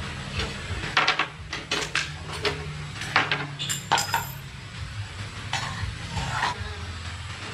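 Metal tools and engine parts clinking and knocking as they are handled during a workshop repair: a dozen or so separate sharp clinks, some briefly ringing, at uneven intervals.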